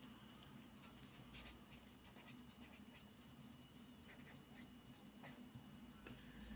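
Faint scratching of a pen writing on a sheet of paper, in short separate strokes.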